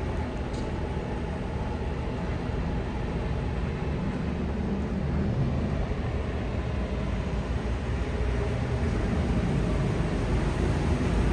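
Passenger ferry under way: a steady low engine drone with rushing water and wind noise, growing slightly louder in the second half.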